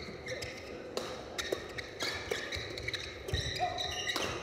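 Badminton doubles rally: several sharp racket strikes on the shuttlecock in quick exchanges, with shoes squeaking on the court floor between them.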